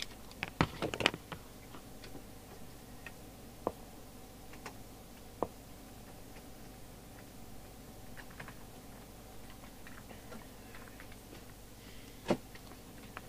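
Sparse clicks and light knocks of bench test gear being handled: a quick cluster about a second in, then single clicks every few seconds, over a faint steady hum.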